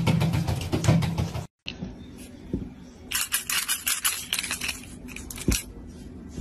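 Water poured from a cup splashing into a bathtub, cutting off abruptly. Then a quick run of light clicking and rattling, like small hard objects tapping, lasting about two seconds, with a couple of dull knocks.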